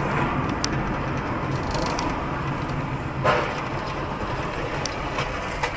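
Car cabin noise from a dashcam: steady engine hum and road noise, with a sharp crash about three seconds in as a car ahead collides.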